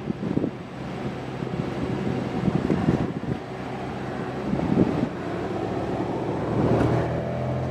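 An H-60-type military helicopter flying overhead: a steady rush of rotor and engine noise, with irregular low gusts of wind on the microphone.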